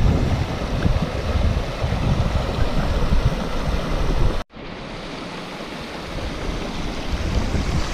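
Rushing water of a rain-swollen stream, with wind buffeting the microphone. About four and a half seconds in the sound cuts off abruptly and resumes as steadier, quieter water with little wind.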